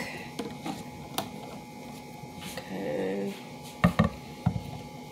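Plastic Color Reveal Barbie tube and its flip-top cap being handled, with a click about a second in and three sharp knocks against the table near the end. A short wordless hum from a person comes just before the knocks.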